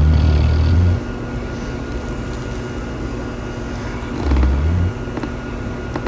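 A sleeping dog snoring: two low snores about four seconds apart, one at the start lasting about a second and a shorter one about four seconds in, over a steady background hum.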